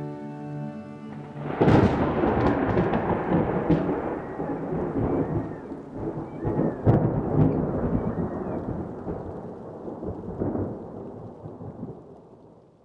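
A sharp thunderclap about a second and a half in, then thunder rumbling on with a few further swells and slowly fading away near the end.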